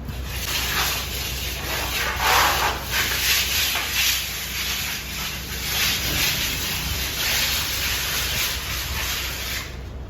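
Repeated scraping strokes of a trowel working plaster across a wall, about two a second, stopping shortly before the end.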